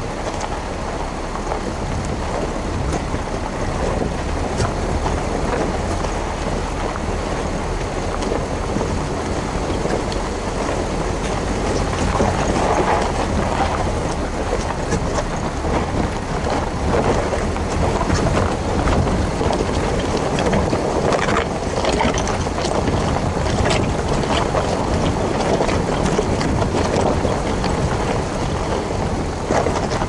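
Renault Duster driving slowly over a rough, rocky dirt track: a steady mix of engine, tyres on loose stone and wind on the microphone, with a few sharp clicks and knocks from stones about two-thirds of the way through.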